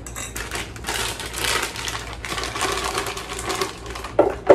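Frozen dark cherries being poured from a plastic bag into a Vitamix blender's plastic jar, a dense clatter of many small hard clicks as the frozen fruit drops in, with a louder knock near the end.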